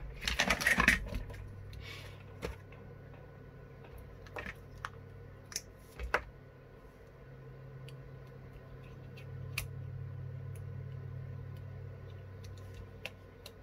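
Hands handling small parts and tools on a workbench: a rustle about a second in, then scattered light clicks and taps, over a low steady hum that swells in the second half.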